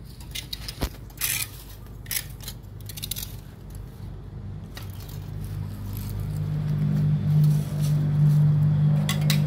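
Metal tongs clicking and scraping against leaf litter and concrete in a drainage gutter, a handful of sharp clicks in the first few seconds. From about halfway a steady low motor hum builds up and becomes the loudest sound.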